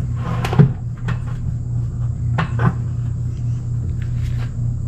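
Tractor air filter element being pushed back into its housing: a few short plastic knocks and scrapes, twice. Under it runs a steady low hum.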